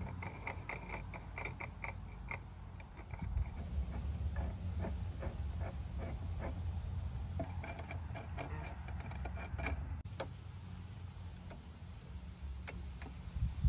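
Quick, evenly spaced metallic clicks in two runs, the second starting about seven seconds in, as a wire tensioner bracing a leaning wooden fence post is tightened by hand. A steady low rumble runs underneath.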